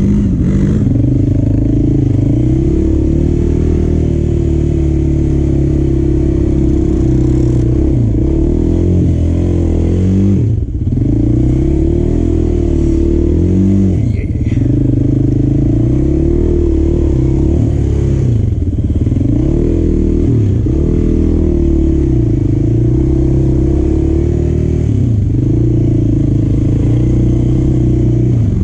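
Motor vehicle engine running under changing throttle, its pitch rising and falling over and over with two brief drops in level partway through.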